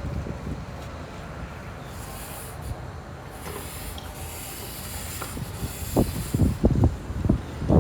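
Wind buffeting the microphone over a low rumble, with a steady high hiss for a few seconds in the middle and stronger gusts near the end.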